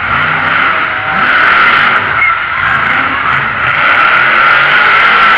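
Monster truck engine revving in repeated rising and falling surges, loud, under a dense wash of noise.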